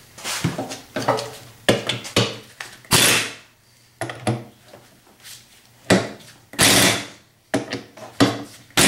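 Handheld power driver with a socket on an extension, run in short bursts to back out the sump bolts of a Briggs & Stratton Intek engine. About a dozen uneven bursts, the longest near the start, the middle and the end.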